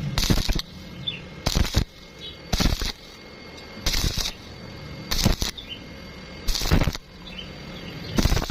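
Welding arc crackling in short bursts of about half a second, seven in all, roughly one every 1.3 seconds.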